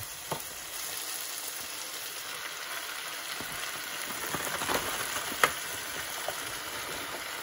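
Sliced onions sizzling steadily as they fry in a pot while fresh spinach is tipped in on top. Light clicks come through now and then, with one sharp click about five seconds in.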